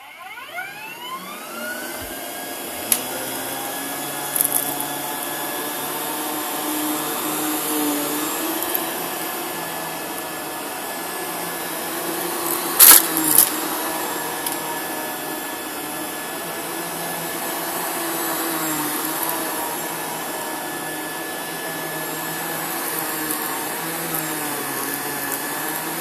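Rainbow water-filter vacuum cleaner's motor spinning up with a rising whine over the first two seconds, then running steadily while vacuuming carpet, its pitch wavering slightly. A sharp knock about 13 seconds in, with a few lighter clicks earlier.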